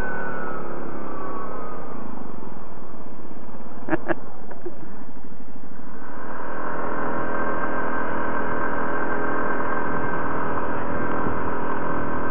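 Yamaha ATV engine on snow tracks, running under way: the engine note drops as it slows over the first two seconds, runs lower for a few seconds with a couple of sharp clicks about four seconds in, then picks up again and holds a steady pace.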